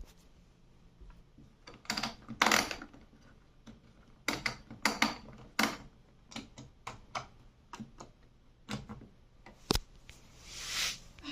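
Irregular clicks, knocks and short rustles of things being handled, with a brief hiss near the end.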